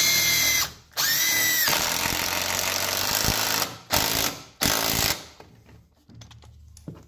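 Teccpo cordless 1/4-inch impact driver with a 7/16 nut driver driving a 7/16 wood lag screw into a wooden door jamb. It gives a short burst, then runs about two and a half seconds of steady impacting, then two short bursts as the lag is seated.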